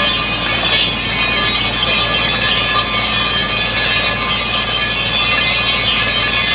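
Borewell drilling rig running loud and steady, its engine and air compressor whining and droning while compressed air blows muddy water up out of the bore in a continuous splashing gush: the bore has struck water.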